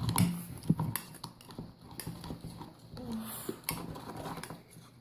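Slime being stirred in a bowl: a utensil taps, clicks and scrapes irregularly against the bowl as the thick slime is worked.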